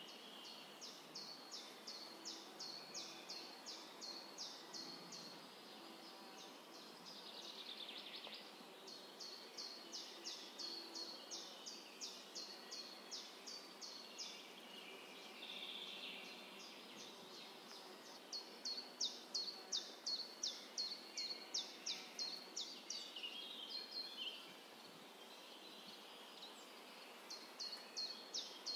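A bird calling in long runs of short, high, downward-slurred chirps, about three a second, with pauses of a few seconds between runs, over faint outdoor background noise.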